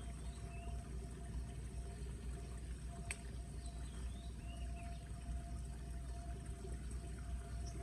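Floodwater pouring and rushing steadily into a street storm drain, with one sharp click about three seconds in.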